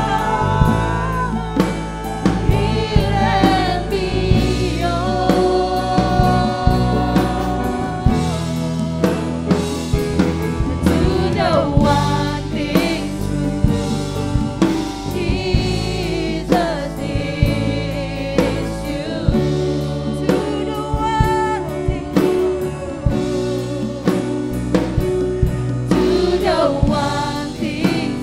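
Worship band and singers performing a gospel praise song: lead and backing voices singing over keyboard, bass and a drum kit keeping a steady beat.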